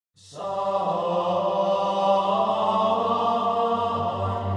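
Background music: a held, choir-like chord with steady, unchanging tones that comes in just after the start.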